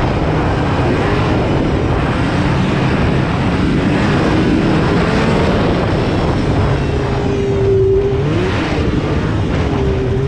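Two-stroke twin engine of a 2016 Polaris RMK 800 snowmobile with an aftermarket Bikeman exhaust can, running hard under steady throttle while riding. A little before the end its pitch holds, drops as the throttle is eased, and climbs again.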